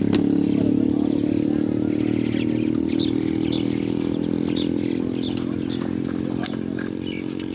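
An engine running steadily at an even pitch, slowly growing quieter, with a few light clicks near the end.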